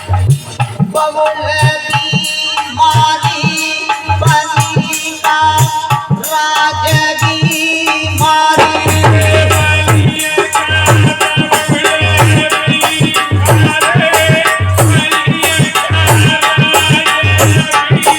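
Instrumental passage of thali Ramayan folk music: a drum beat with rattling percussion under a sustained pitched melody. About halfway through, the drumming grows heavier and busier.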